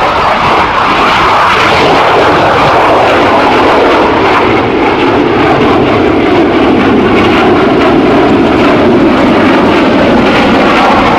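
F-16 fighter jet's F100 turbofan passing low overhead: a loud, steady jet roar whose pitch slowly falls as the aircraft goes by and moves away.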